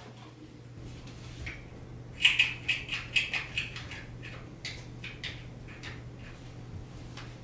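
One-handed bar clamps being squeezed tight around a rope-wrapped post. A quick run of sharp plastic clicks comes about two seconds in, then a few scattered clicks, over a steady low hum.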